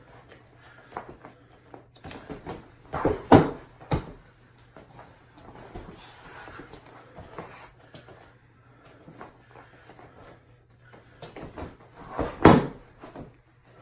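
Judo throws landing on a mat: a person thrown by ouchi gari hits the mat with a loud thud about three seconds in and again near the end, with a smaller knock just after the first and faint scuffing of feet and jackets between.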